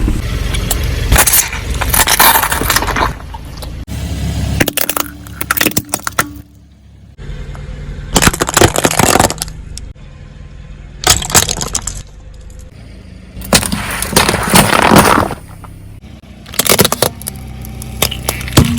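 A car tyre rolling over and crushing brittle objects: several loud bursts of crunching and cracking a few seconds apart, with the car's low rumble between them.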